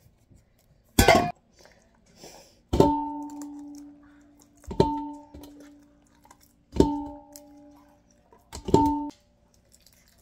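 A metal food can and spoon knock against a large stainless steel bowl while wet pet food is emptied out. There are four sharp strikes about two seconds apart, each leaving the bowl ringing at a steady pitch that dies away, after a short clattering scrape about a second in.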